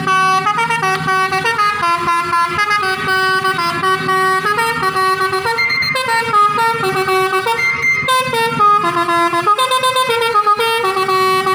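Bus telolet: a bus's multi-tone musical air horns playing a quick stepping melody of short notes without a break.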